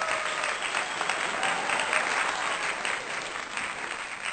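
Applause: many hands clapping at once, steady throughout.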